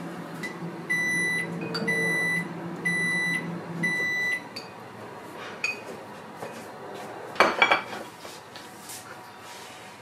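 A kitchen appliance's end-of-cycle signal: four short high beeps about a second apart over a steady electric hum that stops just after the last beep. About two seconds later, a brief clatter of tableware being handled.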